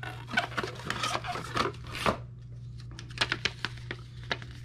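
Cardboard box and a paper instruction sheet rustling and scraping as they are handled and the sheet is taken out and unfolded. A quick run of short rustles and taps over the first two seconds, then a few lighter ones.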